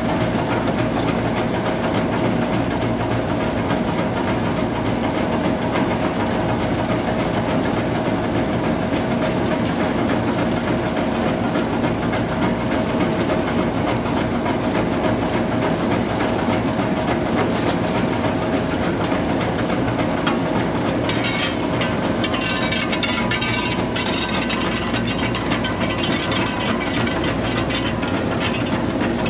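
Brush-roller cassava washing and peeling machine running steadily: a steady machine hum with a held tone, water spray hissing, and the cassava pieces tumbling against the rotating brushes. About two-thirds of the way in, a brighter crackling clatter joins.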